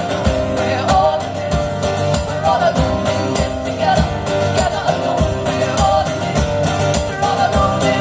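Live acoustic song performance: strummed acoustic guitar with women singing a melody over it.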